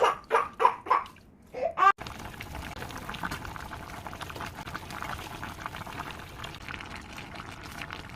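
Water running and pouring steadily, starting abruptly about two seconds in, after a couple of seconds of a person's voice.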